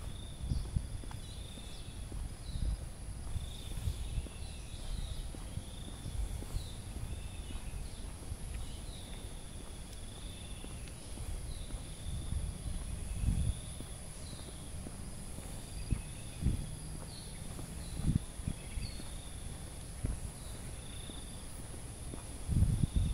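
Evening insect chorus: a steady, high, shrill drone of crickets, with short chirping calls repeating lower down. Low thumps of the walker's footsteps and handling come and go beneath it, a few stronger ones about halfway through and near the end.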